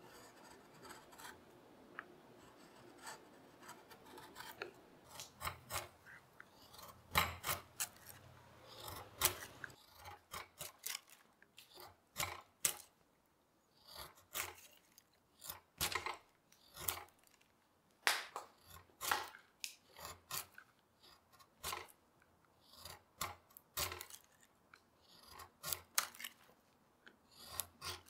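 Curved carving gouge pushed by hand through beech, slicing off shavings: a run of short cutting strokes at irregular spacing, softer for the first few seconds and then sharper.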